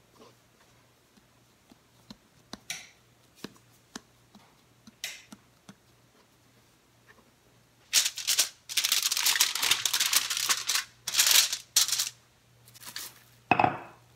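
Aluminium foil crinkling and rustling in several loud bursts from about eight seconds in, as dough buns are pressed down and moved about on the foil sheet. Before that, only a few soft taps and swishes of hands working dough on a plastic cutting board, and near the end a single knock.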